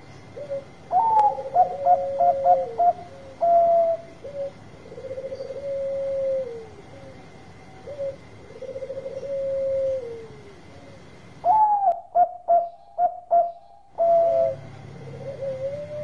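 Bangkok-type zebra dove (perkutut) cooing: bouts of rapid staccato coos, about a second in and again near twelve seconds, with long drawn-out coos that drop away at the end repeated in between.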